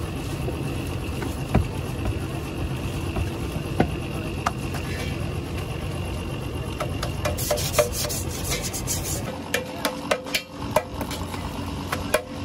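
Hands and a wooden rolling pin working potato-stuffed paratha dough on a flour-dusted counter: dry rubbing and patting with a few sharp knocks. Near the end a quick run of clicks and scratches comes in.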